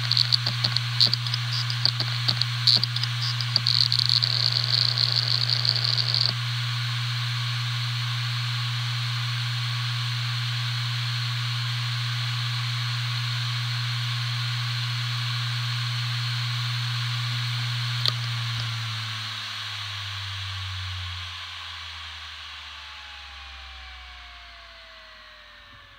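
Hitachi Deskstar 7K2000 2 TB 7200 rpm hard drive running at full speed with a steady hum and whine, with irregular clicking over the first six seconds. About eighteen seconds in there is a single click, then the drive spins down, the hum and whine falling in pitch and fading out.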